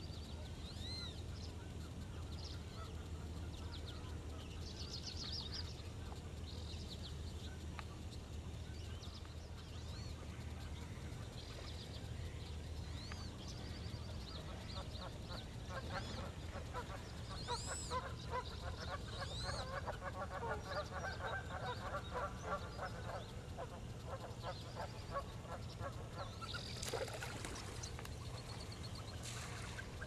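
Waterfowl calling: thin rising-and-falling whistles on and off, and about halfway through a dense stretch of rapid honking and chattering calls lasting several seconds. A short loud rush near the end.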